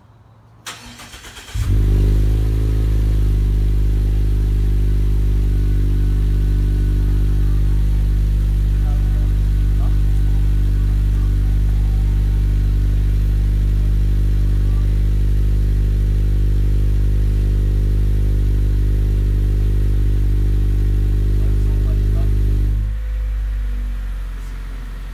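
Cold start of a third-generation Mazda 3's 2.0-litre four-cylinder through a Corksport axle-back exhaust. After a short crank it catches about a second and a half in and settles into a loud, steady cold-start idle. Near the end the sound falls away sharply.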